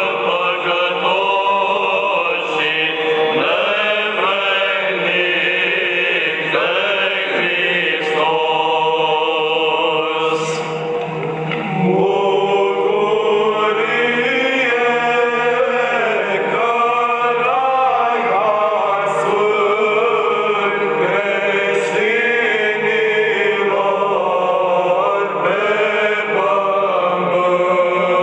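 Choir chanting an Orthodox hymn to the Holy Cross in Romanian, with slow, sustained melodic lines that continue without a break.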